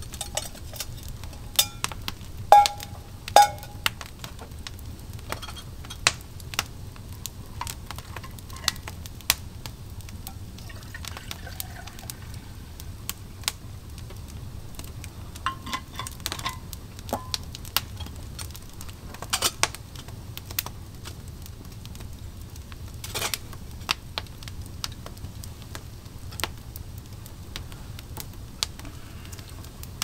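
Metal cookware and utensils clinking now and then, the loudest two ringing clinks about two and a half and three and a half seconds in, over scattered sharp crackling clicks of a campfire.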